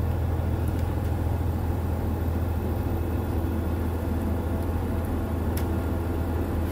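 Steady low drone of a KiHa 100 diesel railcar's engine running, heard from inside the passenger car.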